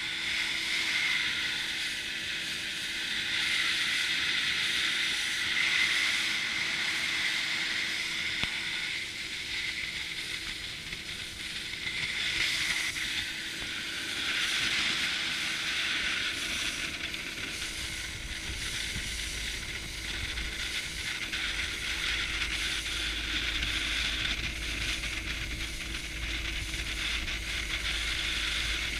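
Inflatable boat under way: a steady motor hum under the hiss of rushing water and wind along the hull. A low rumble joins about two-thirds of the way in.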